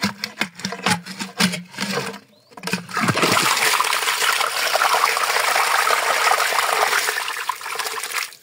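Water gushing from the outlet hole of a stone irrigation reservoir as it is unplugged with a stick and the reservoir starts draining. The first three seconds hold scattered knocks and scrapes as the stick works in the hole, then the water breaks through into a steady loud rush.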